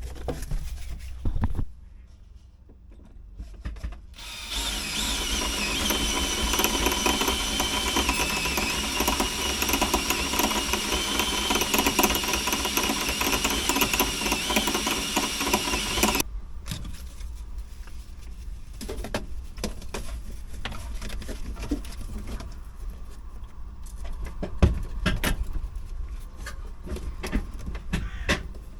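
Power drill running steadily for about twelve seconds, drilling through to take a bolt, and then cutting off. It is followed by lighter scattered clicks and knocks.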